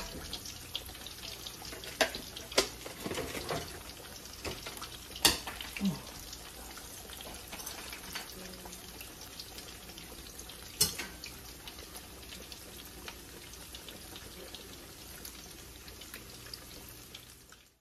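Fried apple hand pies deep-frying in hot oil in a black wok, a steady bubbling sizzle. Occasional sharp clicks, the first from metal tongs knocking the pan as the pies are turned.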